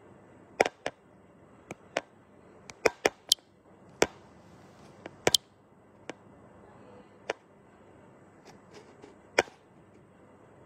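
About fifteen sharp clicks and knocks at irregular intervals over a faint hiss: a phone being handled and set in place for recording.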